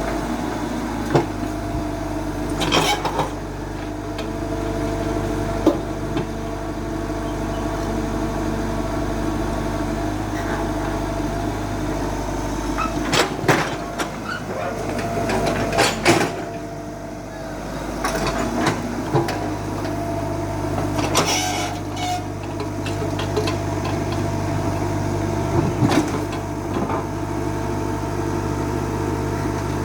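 Excavator's diesel engine running steadily, with sharp metallic clanks every few seconds.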